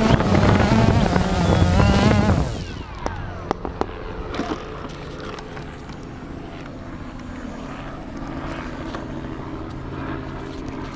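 Quadcopter drone's motors and propellers whining close to the microphone, then spinning down with a falling pitch and cutting out about two and a half seconds in as the drone stops. Handling knocks and clicks follow over a low steady hum.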